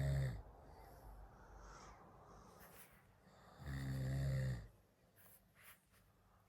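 Snoring: two low-pitched snores about four seconds apart, each lasting about a second. The first is already ending as the sound begins, and a few faint ticks follow near the end.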